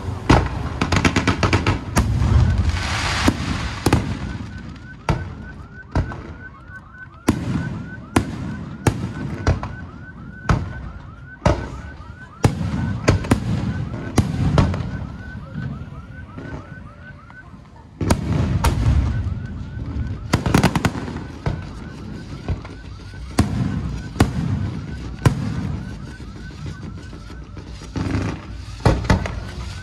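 Fireworks and firecrackers going off in irregular sharp bangs, some close together, over a repeated high chirping whistle that breaks off briefly in the middle.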